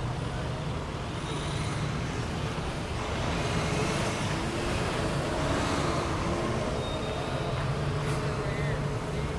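Slow traffic: engines of cars, a truck and a city bus running as they creep past, a steady low rumble that swells a little about midway.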